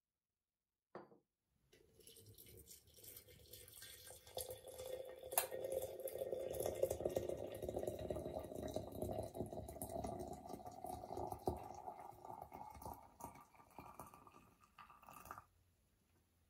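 Water being poured into a china teapot, the pitch of the filling rising steadily as the pot fills, then stopping abruptly near the end.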